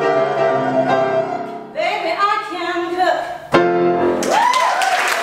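Woman singing the last held notes of a show tune over grand piano. The song ends on a sharp final chord about three and a half seconds in, and applause with a cheering whoop breaks out near the end.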